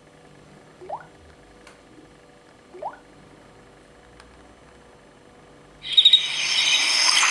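Two short rising chirps about two seconds apart over a faint hiss, then a Samsung Galaxy Tab stock ringtone starts playing about six seconds in, loud and bright with many chiming tones.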